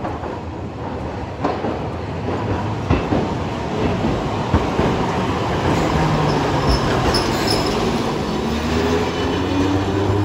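Hiroshima Electric Railway 700-series tram (car 705) approaching and passing close by on street track, running louder as it comes. The wheels knock sharply on the track three times, there is a brief high wheel squeal about two-thirds of the way in, and near the end a motor whine rises steadily in pitch as the tram gathers speed.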